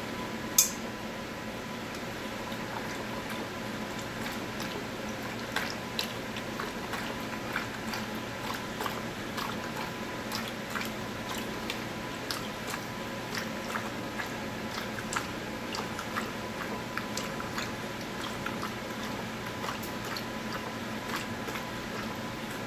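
Pug lapping water from a stainless steel bowl: a run of small wet clicking laps, about two a second, starting about five seconds in. A single sharp click about half a second in is the loudest sound, over a steady hum.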